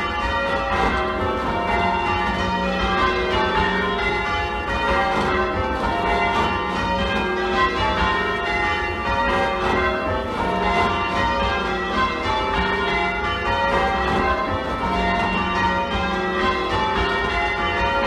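A ring of eight church bells with a 15 cwt tenor in F, rung full circle in change ringing: the bells strike one after another in a steady, unbroken sequence. The trebles sound a little shrill, not tuned to match the older back six.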